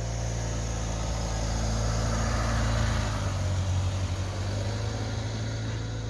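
A motor running with a steady low hum, growing louder about halfway through and then easing off.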